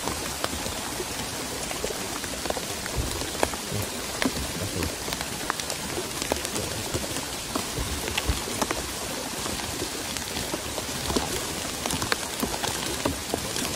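Steady rain falling on leaves, with many single drops heard as sharp ticks close by.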